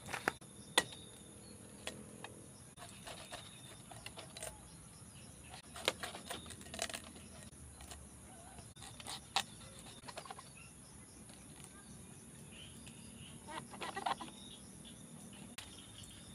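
Scattered knocks and taps of hands and a machete working a young coconut on a bamboo bench, spaced a few seconds apart, over quiet outdoor ambience with a faint high steady tone near the start.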